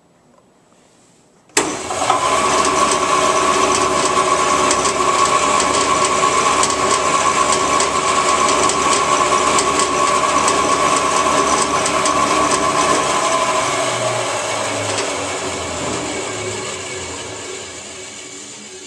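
Woodshop band saw switched on about a second and a half in: its motor comes up to speed with a sudden start and runs steadily with a high whine. Near the end, after it is switched off, the whine stops and the saw coasts down, its noise fading gradually as the wheels and blade spin down.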